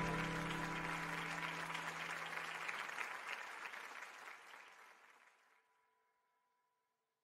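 Audience applauding, with the last of the runway music dying away under it; the clapping fades out steadily and is gone a little past five seconds in.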